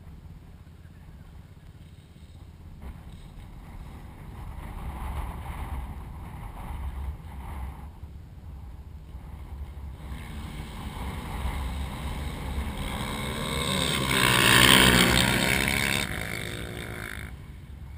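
ATV engine at full throttle in a sand-hill drag run, growing louder and peaking about fifteen seconds in with its pitch bending, then dropping away quickly.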